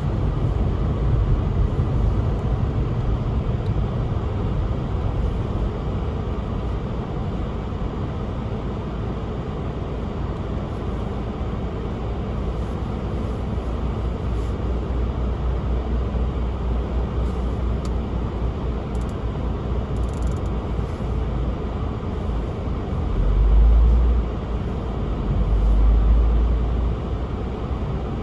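Car driving on a snow-covered road: steady tyre and engine noise, with two swells of louder low rumble near the end.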